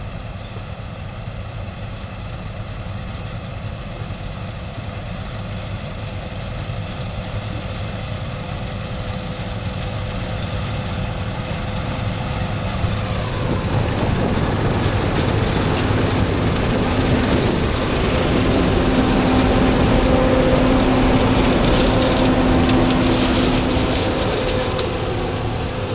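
Combine harvester running while cutting soybeans, a steady engine drone. About halfway through it grows louder and a steady whine comes in over it.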